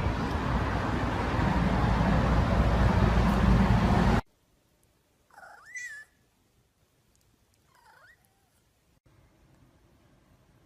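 Loud, dense noise with heavy bass cuts off suddenly about four seconds in. After a short pause a cat gives one meow that bends up in pitch, and about two seconds later a fainter, shorter meow.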